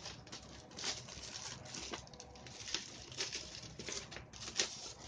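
Plastic packaging rustling and crinkling as it is handled, with a few sharper crackles, the loudest a little over four and a half seconds in.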